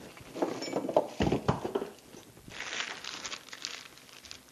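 Rummaging through stored workshop items: irregular clattering and a couple of sharp knocks in the first two seconds, then a stretch of rustling and scraping as things are shifted about.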